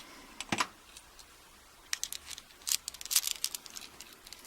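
A screwdriver working a tight screw out of a brass padlock body: scattered small metal clicks and scrapes, one sharper click about half a second in and a run of them in the second half.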